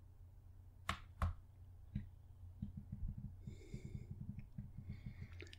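A computer mouse clicked twice, about a third of a second apart, followed by faint soft ticking over a low steady hum.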